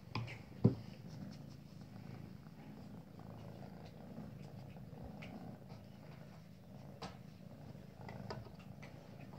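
A house cat purring steadily close to the microphone. Two sharp knocks sound less than a second in.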